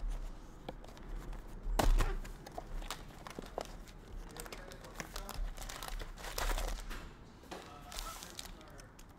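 A cardboard trading-card hobby box is pulled open, with a sharp crack about two seconds in. Its foil-wrapped card packs then crinkle and rustle as they are lifted out and handled.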